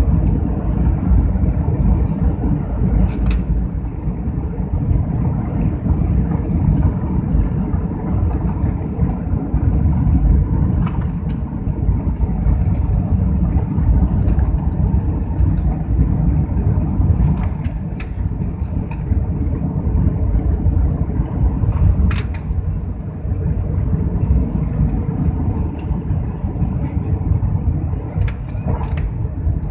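Airliner cabin noise: the jet engines run and the plane rumbles steadily as it rolls along the ground. A few faint clicks come through over the rumble.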